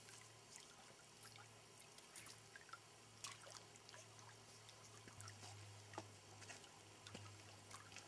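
Near silence: faint lapping and trickling of lake water at a rock shoreline, with a few light scattered ticks over a faint low steady hum.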